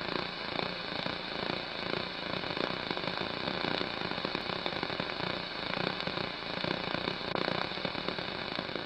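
Steady crackling hiss full of small, rapid pops, like record-surface noise, with no music or voice over it.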